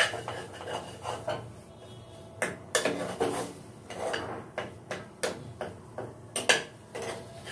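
Spatula stirring green-banana peel paste frying in a pan, with irregular clinks and knocks of the utensil against the pan.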